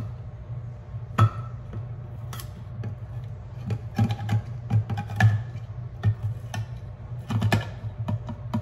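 Handheld manual can opener being cranked around a can's rim: irregular clicks and metal clacks as the cutting wheel bites and the turning key is worked in stop-start turns.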